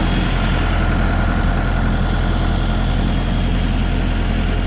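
Tractor engine running steadily at low revs while the tractor creeps along slowly.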